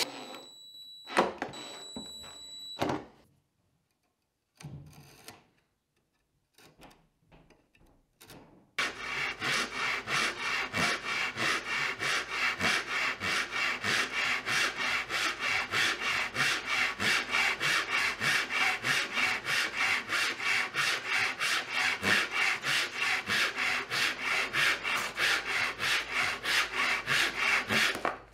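Fine-toothed hand saw cutting a slot into a small wooden block: steady back-and-forth strokes, about three a second, starting about nine seconds in. Before that, a cordless drill/driver whines briefly twice, followed by a few light knocks.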